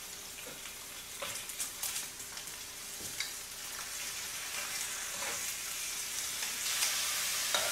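Pork belly slices sizzling in a hot frying pan, the sizzle slowly growing louder, with scattered light clicks of metal tongs and kitchen scissors handling and cutting the meat in the pan.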